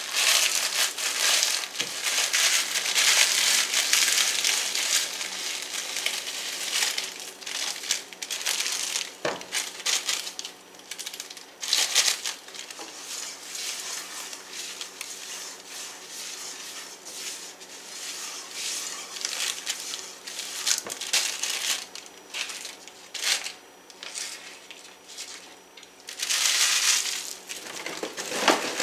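Ritz crackers being crushed inside their plastic sleeve: crinkling wrapper and crunching crackers as the crumbs are poured out. The crunching is densest in the first several seconds, comes in scattered bursts after that, and picks up again near the end.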